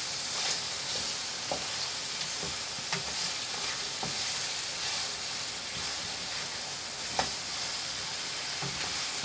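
Quail pepper fry sizzling in a non-stick pan while a spatula stirs it, with light taps and scrapes of the spatula against the pan now and then; the masala is being cooked down until dry.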